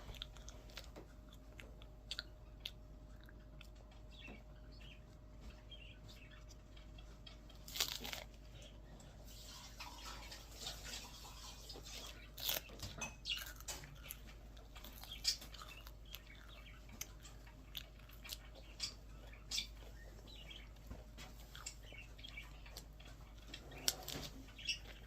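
Close eating sounds: a chocolate wafer-cone ice cream being bitten and chewed, with scattered soft crunches of the cone and wet mouth clicks. The loudest crunches come about 8 and 12 seconds in.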